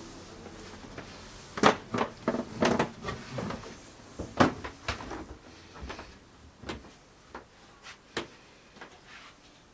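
A series of knocks and clunks, like cupboards, doors or hatches being handled. They come thick in the first half, the loudest about one and a half seconds in and again near halfway, then grow fewer and fainter.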